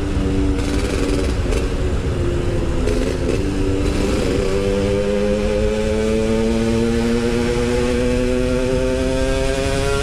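Yamaha RX-King 135cc two-stroke single-cylinder motorcycle engine under way. Its pitch steps up and down over the first few seconds, then rises steadily from about four seconds in as the bike accelerates.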